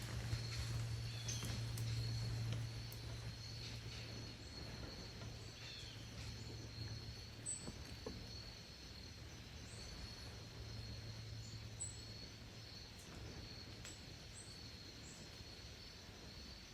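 Quiet woodland ambience: a steady high-pitched insect trill, with a few faint short chirps high above it and a low hum that fades after the first few seconds.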